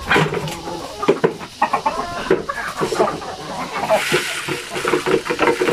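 A flock of native chickens clucking and calling in short, busy notes as they crowd in to feed. About four seconds in there is a brief hiss of feed being poured into the feeder.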